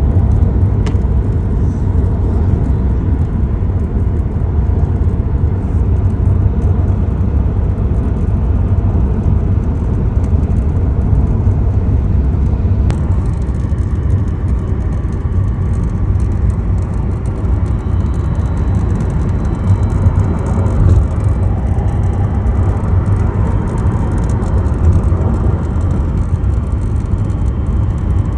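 Steady low road and tyre rumble inside the cabin of a 2023 Tesla Model 3 while driving, with faint, irregular rattling and clock-like ticking from somewhere in the interior.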